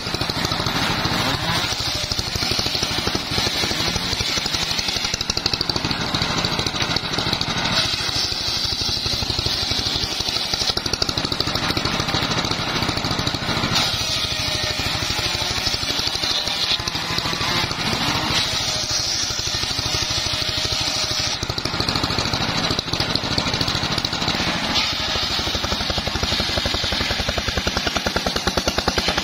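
Homemade engine-driven table circular saw ripping mahogany boards: a steady engine drone with the blade's high whine over it. The sound changes every few seconds as boards are fed through and the blade takes load, then runs free again.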